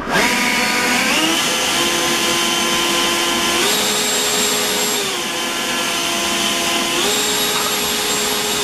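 Atlas 80V brushless cordless leaf blower switched on with the trigger, spinning up within about a second, then running loud with a high fan whine and rush of air. The pitch steps up as the turbo boost is engaged, about three and a half seconds in and again about seven seconds in, dropping back between.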